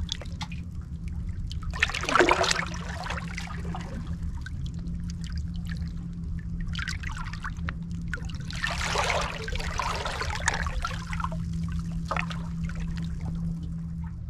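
Small waves on the estuary lapping and splashing at the seawall, with the largest washes about two seconds in and again around nine to ten seconds in, over a steady low rumble.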